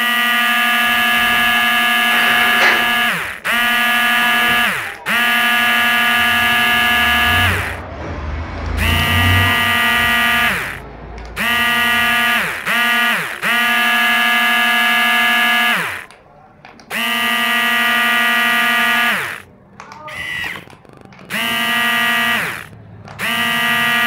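The small electric gear motor of a homemade remote-control truck whines at a steady pitch. It is switched on and off about ten times in runs of one to three seconds, and its pitch drops each time it cuts out and spins down.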